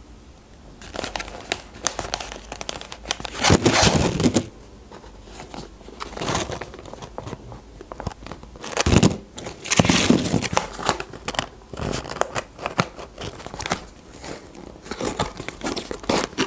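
McDonald's paper and cardboard food packaging rustling and crinkling in irregular bursts as a paper wrapper, a McNuggets box and a sandwich clamshell box are handled and opened. The loudest rustles come about three and a half seconds in and again around nine to ten seconds in.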